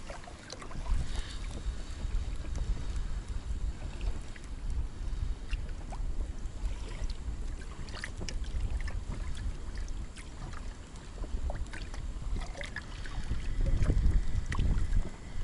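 Wind buffeting the microphone, with water lapping and slapping against the hull of an inflatable boat moving slowly over choppy water. The rumble grows louder near the end.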